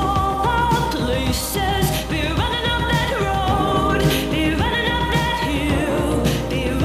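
Background pop song with a singing voice over a full band.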